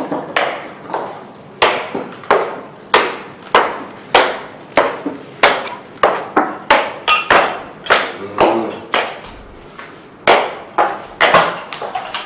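A steady series of sharp knocks or strikes, about one and a half to two a second, each dying away quickly; a quick flurry of lighter clicking comes about seven seconds in.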